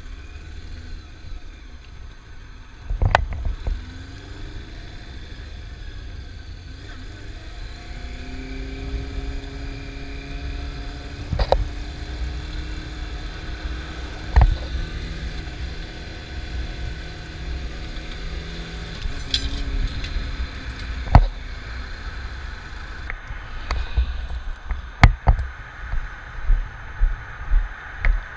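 Honda CB400 Super Four's inline-four engine running as the bike is ridden, over a constant low wind rumble on the microphone. A few sharp thumps come through now and then. The exhaust can is dented and its mount snapped from a crash.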